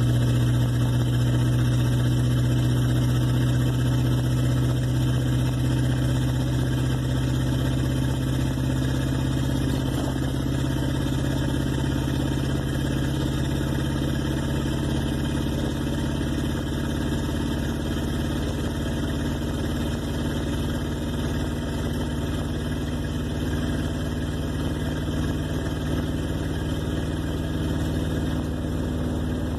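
The 1958 Plymouth Suburban's engine idling steadily, its idle settling slightly lower and quieter over the half minute.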